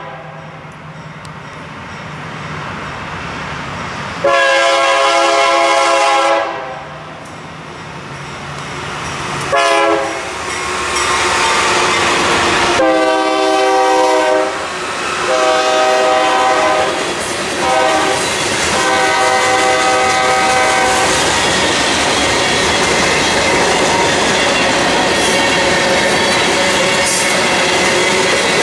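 Lead diesel locomotive's multi-chime air horn sounding a series of long and short blasts for the grade crossing as the freight approaches, while the locomotives rumble past. Over the last several seconds the horn stops and the freight cars roll by with steady wheel noise and clicking over rail joints.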